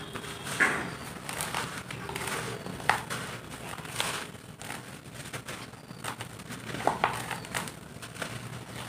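Dry roasted dirt lumps crumbling under a hand, with powdery dust pouring into loose dirt: a soft, irregular crunching and crackling with a few sharper crunches.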